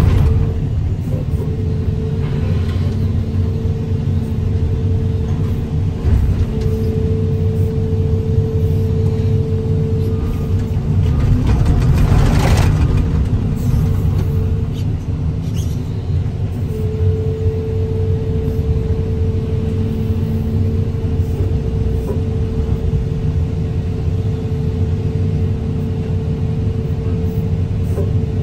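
Excavator's diesel engine running under load with a steady hydraulic whine that drops out about ten seconds in and returns near seventeen seconds, while it lifts a crushed car onto a trailer. A brief louder noise stands out about twelve seconds in.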